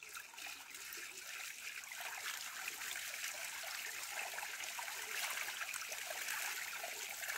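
Water running and trickling steadily, building up over the first two seconds and then holding.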